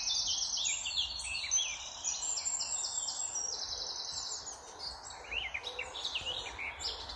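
Several songbirds singing at once in trees, rapid repeated trills and chirps overlapping throughout, over a steady background hiss.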